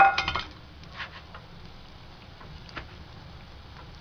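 Pakoras frying in oil, a steady sizzle with a few small pops. At the very start a metal clink rings briefly; it is the loudest sound.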